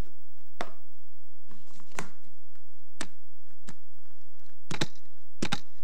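Sharp clicks and taps of hard plastic on a tabletop, about seven spaced irregularly, as sport-stacking cups and their timer are handled. A steady low hum runs underneath.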